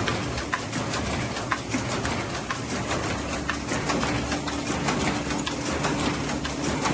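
KAS Mailmaster 465HS envelope inserter running: a steady mechanical clatter of its feed stations and rollers, with rapid ticking as inserts and envelopes pass through. A low steady hum comes in about three seconds in.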